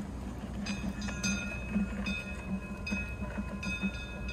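Metal chimes ringing, struck at irregular intervals about every half second to a second, over a low steady hum.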